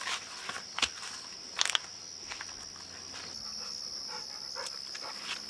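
A steady, high-pitched drone of summer insects, with the walker's footsteps crunching through dry grass and twigs and a few sharp clicks, the loudest a quick double crack under two seconds in.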